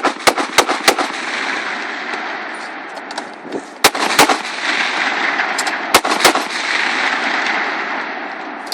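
Gunshots: four sharp cracks in quick succession in the first second, then a pair of shots about four seconds in and another pair near six seconds, over a steady rushing noise.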